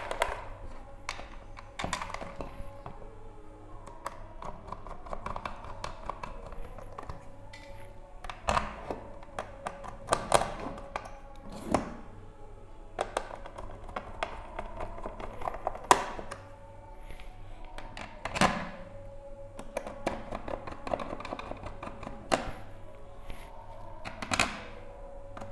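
A plastic modular switchboard being closed up and handled with a screwdriver: scattered sharp knocks and clicks of plastic and metal, a few seconds apart.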